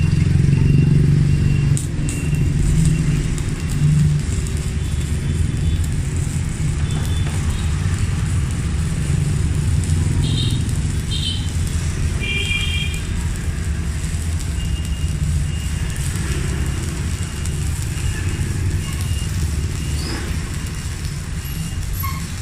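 Megatec mini inverter welder running a continuous stick-welding arc on a 3.2 mm electrode, with a steady buzzing crackle under heavy load.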